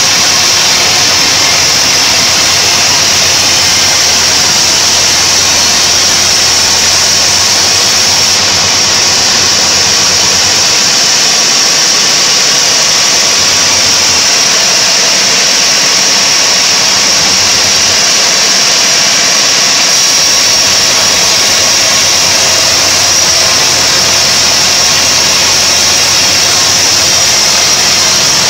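Home-built band sawmill running steadily, its blade sawing lengthwise through a large mahogany log: a continuous loud noise with a high-pitched whine over a low hum.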